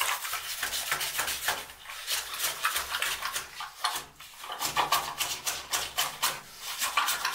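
Wet clay being scraped and worked by hand with a cutting tool: a quick, irregular run of wet scrapes and squelches, with a short pause about four seconds in.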